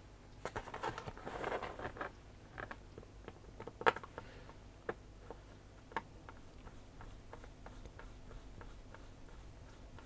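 Asus ROG Strix laptop's access panel being pressed down by hand: soft rustling handling for the first couple of seconds, then a few sharp clicks about a second apart as its clips snap into place, followed by faint scattered ticks.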